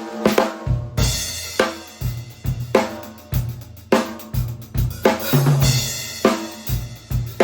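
Drum kit played in a groove: a 14 x 8 inch hard maple stave-shell snare drum at a medium-high tuning, with bass drum, hi-hat and cymbals. There are repeated sharp hits several times a second, and a cymbal wash comes in about a second in.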